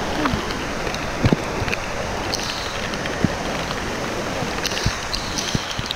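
Steady hiss of rain, with scattered drops tapping on the camera.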